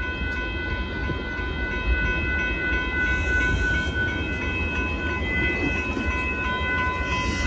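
Union Pacific freight train of hopper cars rolling past, a low rumble under a steady high-pitched ringing tone that stops near the end.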